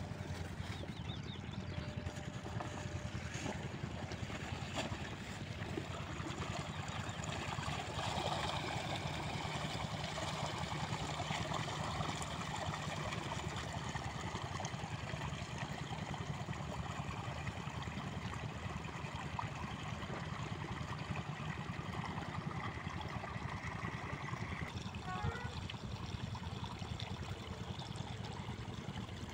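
An 8 hp diesel water pump set running steadily with a constant low hum, with irrigation water flowing and trickling over it.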